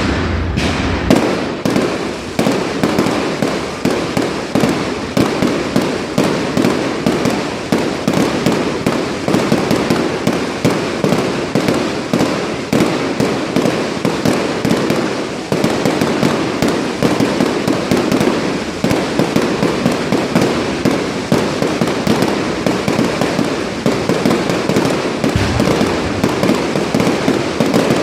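Fireworks going off in a dense, unbroken barrage, many cracks and bangs a second.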